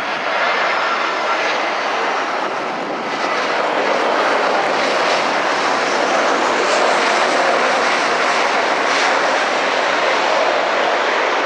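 Airbus A320 jet engines with a loud rushing noise as the airliner touches down and rolls out on a wet runway. About four seconds in the noise grows louder and stays up as reverse thrust comes in.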